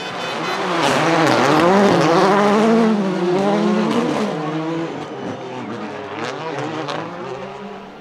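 Two Audi S1 RX rallycross cars' turbocharged engines revving hard, the pitch rising and falling again and again as they drive through together, loudest about one to three seconds in and then fading as they pull away. A few sharp pops come near the end.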